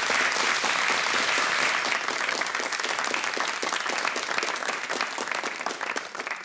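Studio audience applauding, a dense patter of many hands clapping that slowly fades toward the end.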